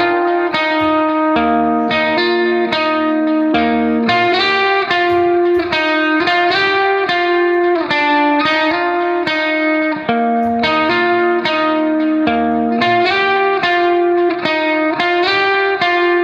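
Background music: an instrumental guitar melody of quickly plucked notes, several a second, with occasional bent notes.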